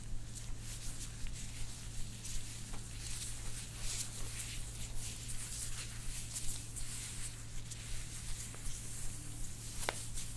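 Soft rustling and small ticks of hands working over skin and hair on the head and neck, over a steady low hum, with one sharp click near the end.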